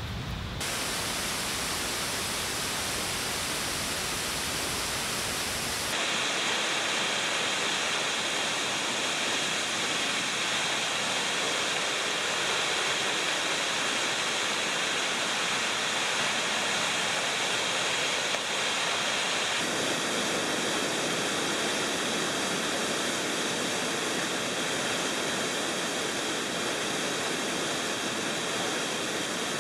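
Steady rushing of a waterfall and river rapids, changing abruptly in tone about six and twenty seconds in.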